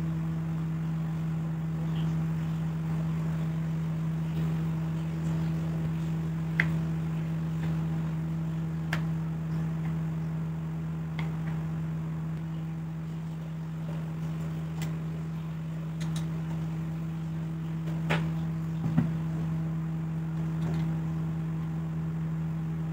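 A steady low drone runs underneath, with a handful of light clicks and taps from hands handling a switched-off Makita electric hand planer's metal base plates and blade drum as its blades are set, the sharpest two near the end.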